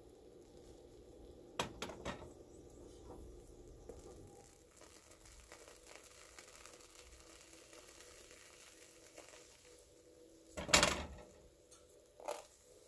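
A plastic slotted spatula scraping and pressing against a nonstick frying pan as marshmallow Peeps fry. There are a few short scrapes about two seconds in and a louder, longer scrape near the end, over a faint steady sizzle.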